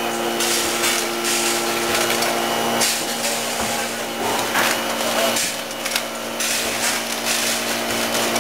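MDC horizontal form-fill-seal packaging machine running: a steady mechanical hum holding several steady tones, broken every second or so by short hisses and clacks from its pneumatic cylinders.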